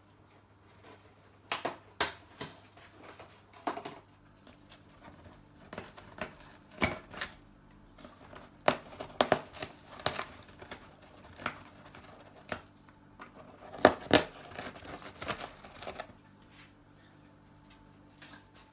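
African grey parrot tearing and crunching at packaging with its beak: irregular snaps, rips and crinkles, coming in bursts.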